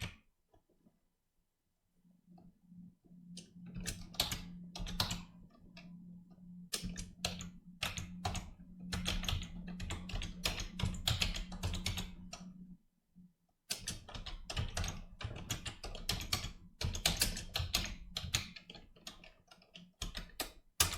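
Computer keyboard being typed on in quick irregular runs of key clicks. A low steady hum runs under the typing from about two seconds in and stops about thirteen seconds in.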